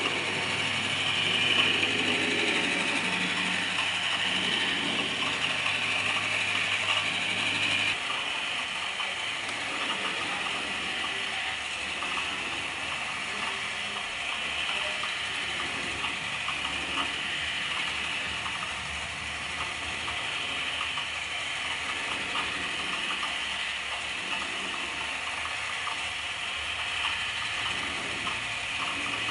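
Motor-driven turntable drawing machine running: a steady mechanical whir with dense, fine rapid clicking from its gearing. About eight seconds in, a low hum drops out abruptly and the sound turns a little quieter but keeps going.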